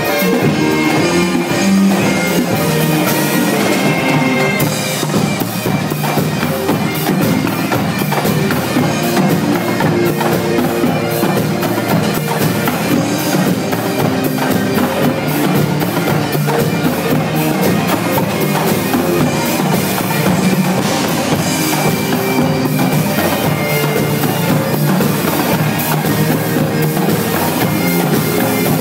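Bagpipes playing held notes over a marching percussion line of multi-tenor drums and bass drums, with dense, rapid drum strokes throughout.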